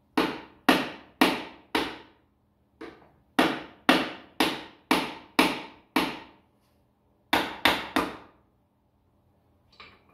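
Hammer blows on metal at a tractor engine: about fourteen sharp strikes, roughly two a second, in three runs with short pauses, each ringing out briefly.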